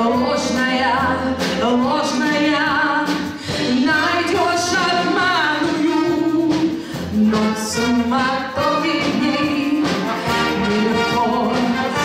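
A live brass band playing a song, with a woman singing over the band with vibrato.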